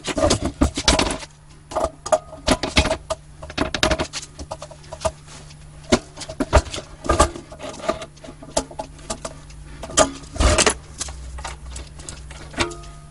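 Irregular metal clinks, knocks and clatter of hand tools on a steel air compressor tank and its fittings as it is taken apart, over a steady low hum.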